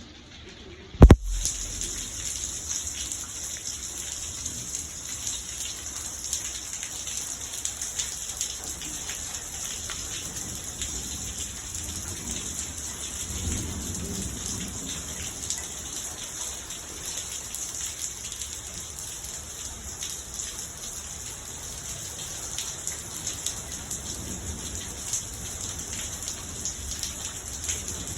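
Heavy rain falling steadily, starting suddenly with a loud thump about a second in.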